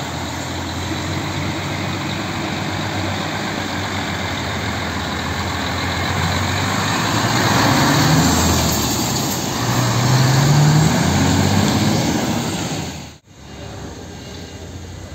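Heavy Mercedes-Benz Actros 4144 fire truck's diesel engine running as the truck drives past close by. Its engine note rises twice as it pulls away, loudest in the middle. About two seconds before the end the sound cuts off sharply to quieter street noise.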